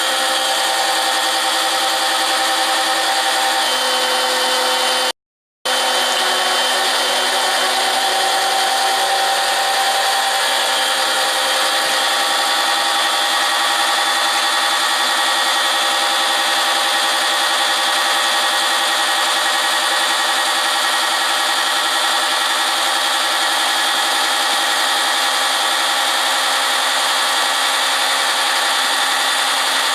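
John Deere 140 garden tractor engine running steadily at a constant speed, warming up before an oil change. The sound cuts out briefly about five seconds in.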